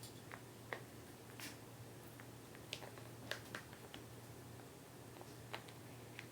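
Faint, irregular clicks and taps of plastic figurine pieces being handled and fitted together, a cape and head being put on a figure, over a steady low hum.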